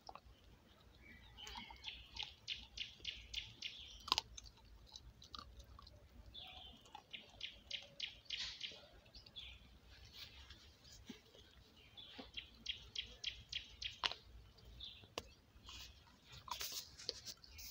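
A puppy chewing on a dead rooster, in runs of quick crunching bites through feathers and flesh, with a couple of single sharper cracks.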